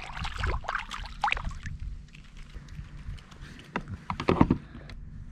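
Scattered knocks, clicks and handling noises on a plastic sit-on-top fishing kayak while a small perch is reeled in and lifted aboard. The loudest knocks come about four seconds in.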